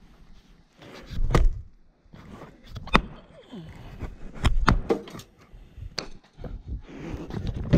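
An axe splitting firewood: several sharp, heavy strikes into logs, spaced about a second and a half apart.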